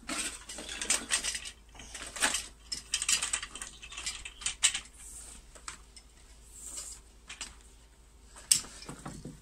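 Clinking, rattling and scraping of welding cables and their metal clamps being picked up and handled, busiest in the first half, with a sharp knock near the end.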